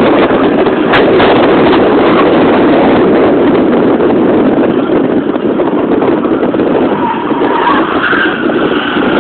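BMW E21 320i driven hard through an autocross course, its engine running under load, with tyre squeal coming in near the end as the car corners.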